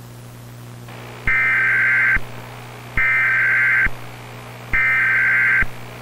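Emergency Alert System SAME header: three bursts of digital data tones about a second each, with short pauses between. A steady low hum runs underneath.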